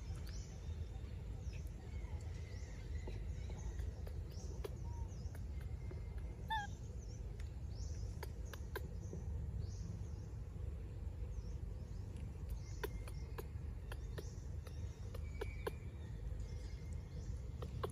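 Outdoor ambience: many short, high bird chirps over a low steady rumble, with scattered faint clicks and a brief falling series of chirps about six seconds in.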